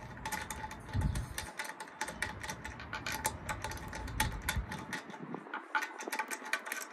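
Quick, irregular metallic clicking from a car wheel's lug nut being turned off by hand with a small tool. The clicks come close together, like typing.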